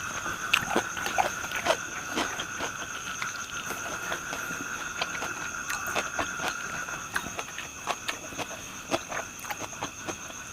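Close-up chewing and crunching of fried pork intestines, a run of irregular wet clicks and crunches. Behind it is a steady high-pitched insect drone in several tones, and the lowest of them stops about two-thirds of the way through.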